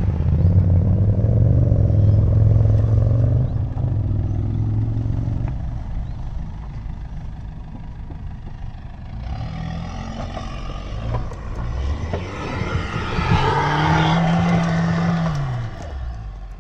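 Maruti Suzuki Vitara Brezza compact SUV's engine working hard as it climbs a steep, loose dirt slope. It is loudest in the first few seconds, then quieter, and near the end it revs up, holds, and drops back down.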